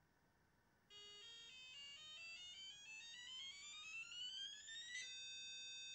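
Apple IIgs's Ensoniq sound chip playing electronic test tones during the computer's built-in self-test: a cluster of stepped beeping notes starting about a second in, climbing into a rising glide, then a steady held chord near the end.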